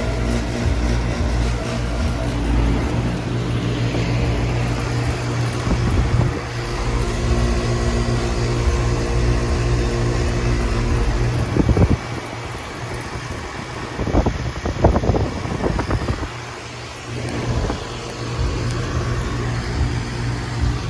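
Residential central air conditioner outdoor units running with a steady hum. The hum drops in level about twelve seconds in, with a few knocks and rustles around then and again a couple of seconds later.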